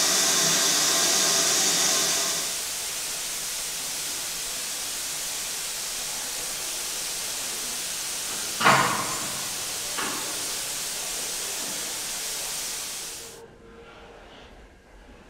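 Steam hissing steadily from a standing BR Standard Class 9F steam locomotive; it is loudest at first and eases about two seconds in. A sharp metallic clank comes a little before nine seconds, with a fainter one a second later. The hiss stops abruptly near the end.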